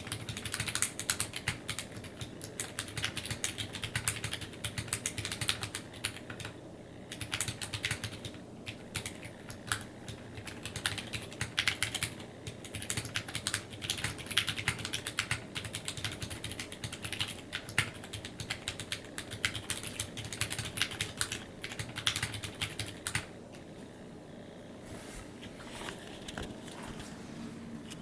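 Fast, continuous typing on a Drop ALT mechanical keyboard with Sakurio 62g switches, PBT keycaps and lubed, clipped Cherry stabilizers with the Band-Aid mod: a dense run of key clicks that thins to a few scattered strokes for the last few seconds.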